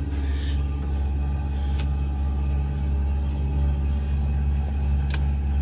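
Boat's onboard generator running with a steady low drone. Two sharp clicks, about two and five seconds in.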